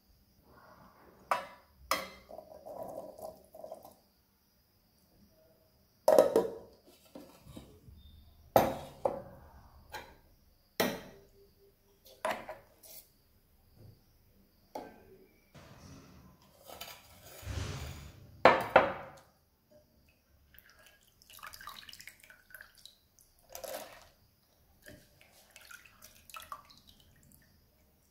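Kitchen utensils knocking and scraping: a metal spoon and a glass cup striking and scraping a stainless-steel mixer-grinder jar as soaked tapioca pearls and urad dal are put in, about ten separate sharp clinks with softer handling between.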